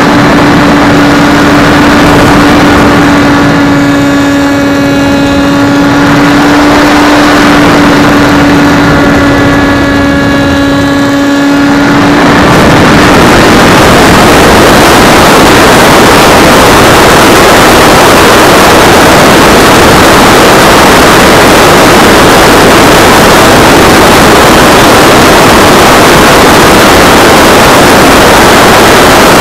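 Onboard camera on an electric RC foam jet: the brushless motor and propeller give a steady high whine for about the first twelve seconds, then the whine stops and loud wind rush over the camera microphone takes over as the plane dives nose-down.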